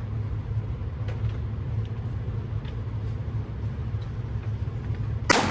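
Steady low hum of the range with a few faint distant ticks, then about five seconds in a single sharp pistol shot that rings off briefly.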